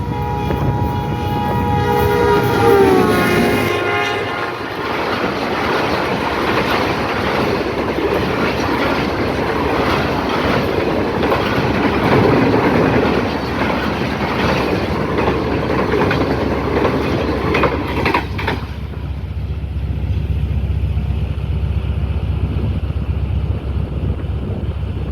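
Passing express train led by a ZCU diesel locomotive. Its multi-tone horn sounds for about three seconds, dropping in pitch as it passes. Then the coaches rush past with wheels clacking over the rail joints, until about 18 seconds in, leaving a low wind rumble on the microphone.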